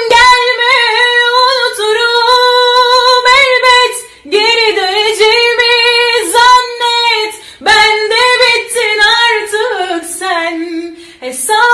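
A woman singing a Turkish song unaccompanied, in long held, wavering melismatic notes. There are three phrases, with short breaths about 4 and 7.5 seconds in.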